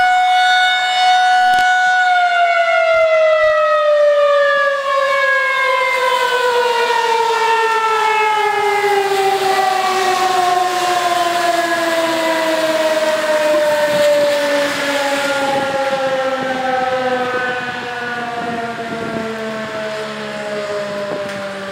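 Outdoor tornado warning siren sounding a loud steady tone, then about two seconds in beginning a long, slow, even fall in pitch as it winds down, growing quieter toward the end.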